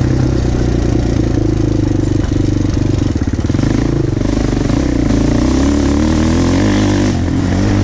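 Suzuki LTZ-400 big-bore quad's single-cylinder four-stroke engine running under throttle on a dirt track. The revs vary continuously, climbing in pitch past the middle and dropping briefly near the end.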